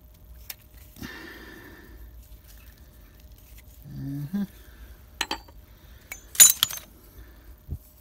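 Steel engine parts clinking as a removed crankshaft main bearing cap and shell are handled: scattered light clicks, then a loud cluster of ringing metallic clinks about six and a half seconds in, and a dull knock near the end.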